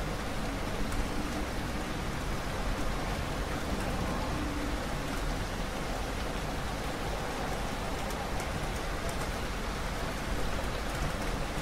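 Steady rain falling, an even hiss with scattered sharper drop ticks through it.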